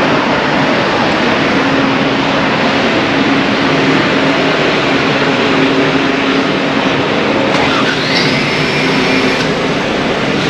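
Steady, loud vehicle noise with a low engine hum. About eight seconds in, a high squeal rises and holds for a second or so before stopping.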